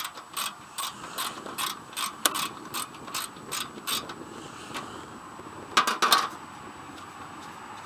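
A socket ratchet wrench clicks in a steady rhythm, about two to three clicks a second, as a seat bolt on a riding lawn mower is backed out. The clicking stops about halfway through. A short burst of louder clicks comes about three-quarters of the way in.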